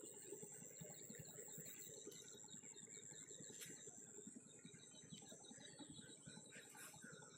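Faint outdoor ambience: a steady high-pitched insect trill, with a few faint bird chirps.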